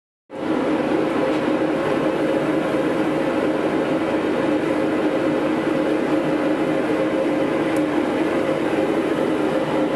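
Forge running with a steady rushing hum that cuts in abruptly just after the start and holds constant throughout.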